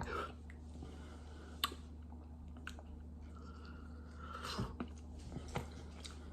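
A person chewing a bite of hot baked chicken, with soft, scattered mouth clicks and a faint steady hum underneath.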